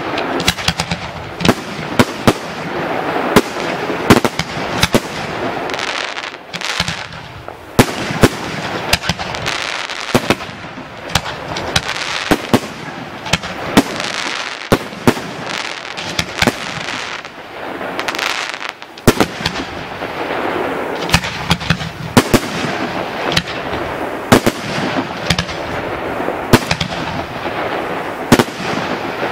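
Italian cylinder firework shells bursting overhead: a long run of sharp bangs, sometimes several a second, over a continuous hiss, with a few short lulls.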